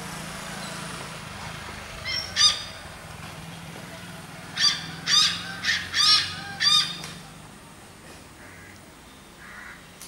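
Hornbill calling: two calls about two seconds in, then a quick run of about five more around the middle.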